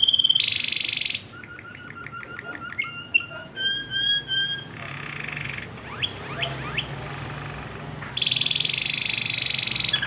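Waterslager song canary singing a varied song. Loud rolling trills near the start and again near the end frame runs of short repeated notes, clear whistled notes and quick rising notes.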